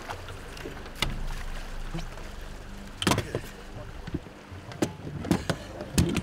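Oars of an inflatable river raft being rowed: a handful of sharp knocks as the oars work in their mounts, over the low rush of river water.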